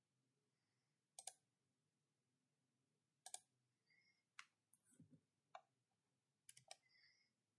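Faint, sharp computer mouse clicks, about one every second with some in quick pairs, as points are picked on screen.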